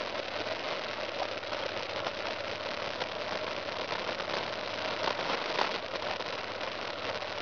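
Single-cylinder engine of a BMW F 650 GS Dakar motorcycle running steadily as it rides a rough dirt trail, with frequent short knocks and rattles from the bumpy ground.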